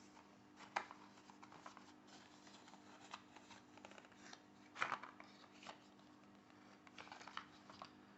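Faint handling sounds: scattered rustles and small clicks as a new smartwatch strap is taken out of its packaging, briefly louder about five seconds in.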